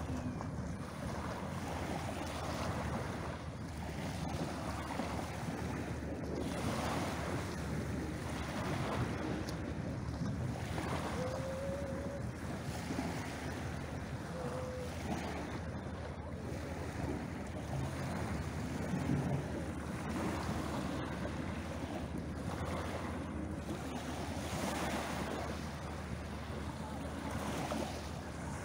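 Small waves breaking and washing up over a pebble beach, a fresh swell every few seconds.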